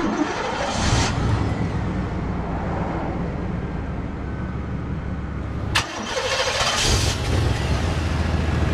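1991 Chevrolet Caprice Classic's 305 V8 being started: a click of the key, a brief crank that catches and flares about a second in, then a steady idle. After a sharp click near six seconds the idle is heard close to the tailpipe, a little louder.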